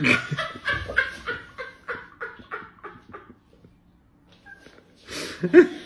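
A woman laughing helplessly: a run of short "ha" bursts, about four a second, fading away over about three seconds. After a short quiet, a breathy gasp of laughter comes near the end.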